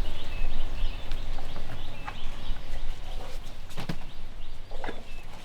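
Small birds chirping over and over in short, high notes, with a few sharp knocks, the loudest near the middle and again near the end, and a low rumble at the start.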